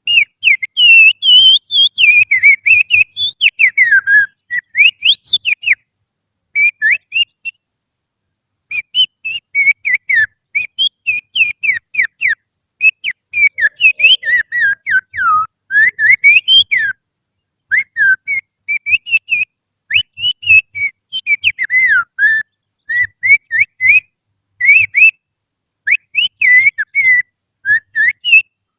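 Finger whistling through the little fingers, imitating the song of an Oriental magpie-robin: rapid chirps and sharp up-and-down slides in quick phrases, broken by brief pauses.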